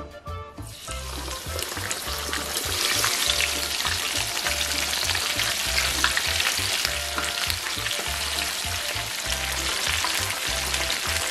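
A whole flour-dusted mojarra (tilapia) going into hot vegetable oil in a frying pan: the oil starts sizzling about half a second in, builds over the next couple of seconds, then bubbles steadily as the fish fries.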